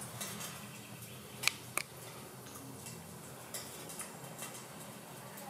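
Quiet room tone: a steady low hum, with two sharp clicks about a second and a half in.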